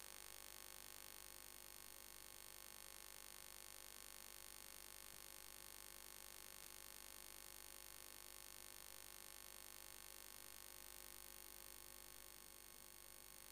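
Hot air rework gun blowing steadily onto a phone's charging-port board, a faint even hiss of air with an electrical hum, heating the solder to free or seat the charging connector.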